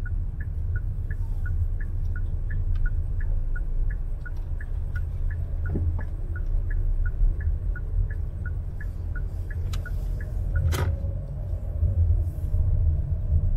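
Low rumble of a car driving, heard from inside the cabin, with the turn-signal indicator ticking in an even two-tone tick-tock of about three ticks a second for most of the first ten seconds. A single sharp click about eleven seconds in.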